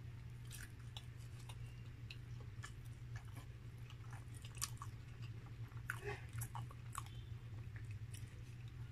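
A person chewing a mouthful of burger close to the microphone: scattered short wet clicks and smacks of the mouth, over a steady low hum.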